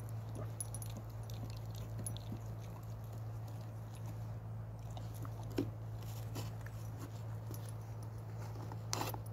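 Beagle gnawing at a deep-frozen bone: irregular clicks and scrapes of teeth on frozen bone, with a sharper crunch near the end, over a steady low hum.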